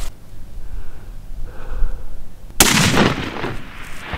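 Cinematic logo-sting sound effect: a low rumble, then a sudden loud hit about two and a half seconds in that dies away over about a second.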